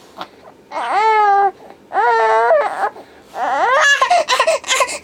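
A young child's high voice: two drawn-out vocal cries about a second apart, then a run of rapid choppy coughs from about three seconds in.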